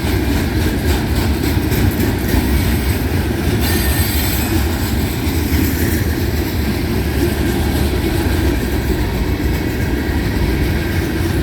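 Loaded rock hopper cars of a freight train rolling past at close range: a steady rumble with the clatter of wheels on the rails.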